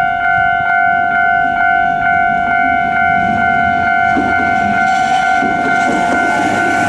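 Japanese level-crossing warning bell ringing its steady 'kan-kan' tone about twice a second, with the noise of a passing electric train rising from about four seconds in.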